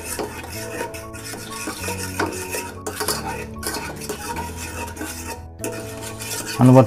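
A metal utensil stirring custard cream mixture in a metal saucepan, scraping and clinking against the pan with many small ticks, as the custard heats and is stirred continuously.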